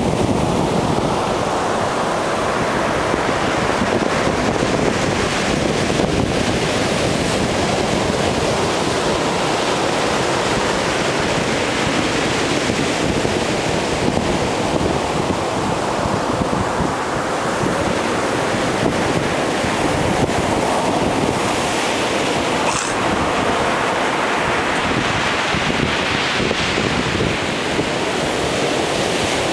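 Ocean surf: waves breaking and washing in, a steady rushing noise that swells and eases every several seconds.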